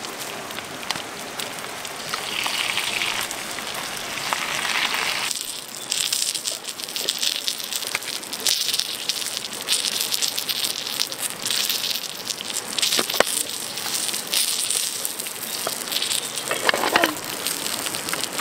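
Open wood fire crackling with a steady hiss under a fish grilling in a tray; the crackles come thick from about five seconds in.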